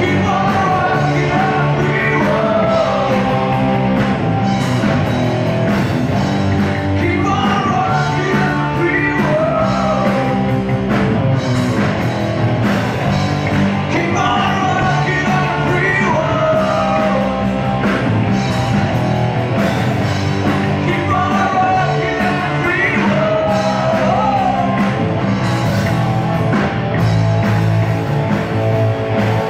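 Rock song recording: a lead vocal sung over a full rock band, with a steady drum beat and held bass notes underneath.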